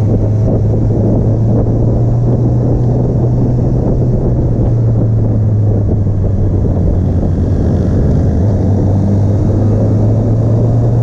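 Motorcycle engine running steadily at cruising speed with a heavy rush of wind noise. The engine note edges slightly higher near the end.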